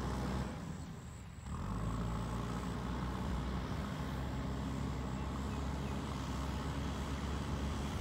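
JCB 3DX Super backhoe loader's diesel engine running steadily, briefly dropping in level about a second in and then picking up again.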